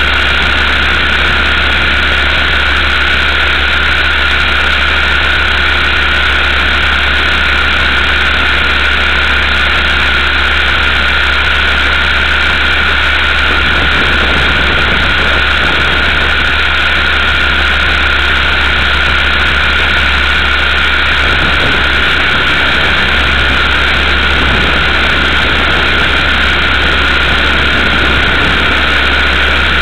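Multiplex Funcopter RC helicopter's electric motor and rotor in flight, heard from a camera mounted on the craft: a loud, steady high whine with rotor noise and no change in pitch.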